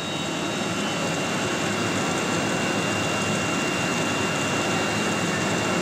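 Steady machinery noise with a thin, constant high whine running through it, unchanging throughout.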